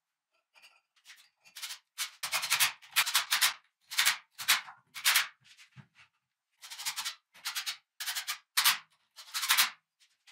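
Hand sanding in repeated scratchy strokes, about two a second, with a short pause about six seconds in.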